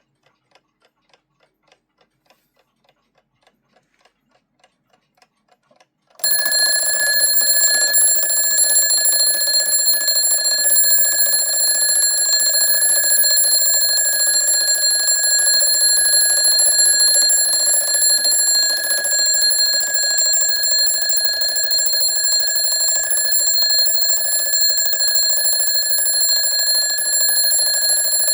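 WWI-era German 'Kriegswecker' mechanical alarm clock ticking, then about six seconds in its alarm goes off. The bell rings loudly and without a break, one steady ring.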